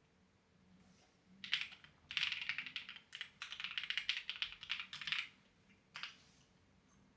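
Clacky computer keyboard being typed on: after a short pause, rapid runs of keystrokes with brief breaks, then one last single key press.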